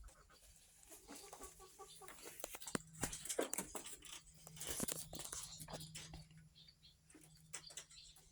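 Chickens clucking faintly, among many small clicks and scratches.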